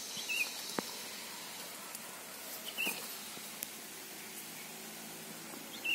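A small bird's short, high chirp, heard three times about two and a half seconds apart over a steady outdoor hiss.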